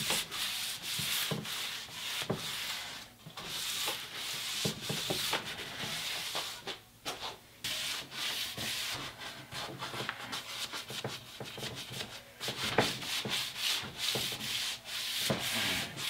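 Hand rubbing down a wooden axe handle: a run of scratchy back-and-forth strokes along the wood, with a few short pauses.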